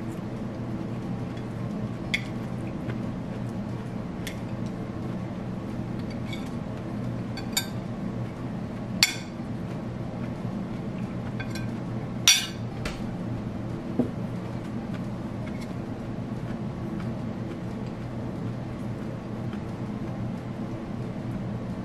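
Chopsticks and a fork clinking against dishes as food is served and eaten: about six sharp clinks spread out, the loudest about halfway through, over a steady low hum.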